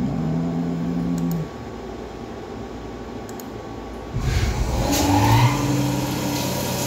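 Tormach MX1100 CNC mill starting its cycle. About four seconds in, the flood coolant comes on with a sudden hissing rush, and the spindle spins up with a rising whine, then settles into a steady hum.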